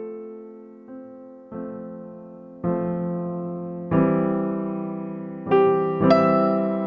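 Background music of slow, sustained keyboard chords. A new chord is struck every second or so and each one fades out.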